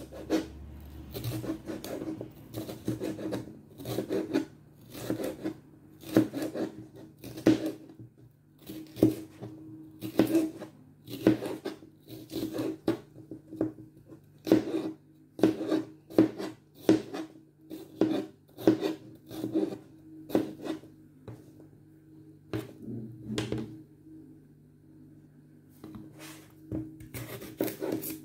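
Kitchen knife chopping red bell pepper on a plastic cutting board: a steady run of sharp knife strokes, about one or two a second, with a short pause a little before the end. A faint steady low hum lies underneath.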